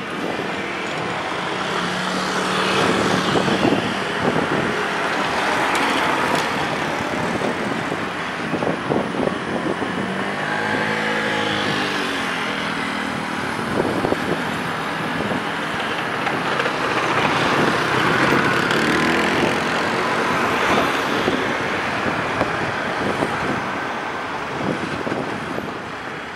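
Road traffic passing close by over a level crossing, engines and tyres swelling and fading as each vehicle goes by; about ten seconds in one engine's pitch rises and falls as it passes, and a small truck drives past near the end.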